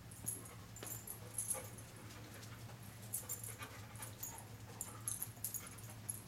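A dog searching by scent, sniffing and moving about on carpet, its collar tags jingling in short bursts now and then, over a steady low hum.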